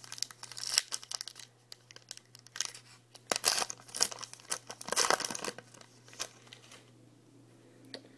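Foil wrapper of a trading card pack crinkling and tearing as it is ripped open by hand, in irregular crackling bursts that are busiest in the middle and die away near the end.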